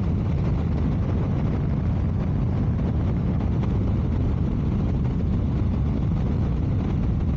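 Steady low rumble of motorcycle riding noise picked up by a clip-on wireless microphone: wind buffeting the mic along with engine noise, at an even level throughout.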